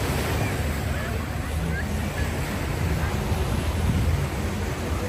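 Lake Michigan waves washing on the beach, with a steady low rumble of wind on the microphone and faint voices of people around.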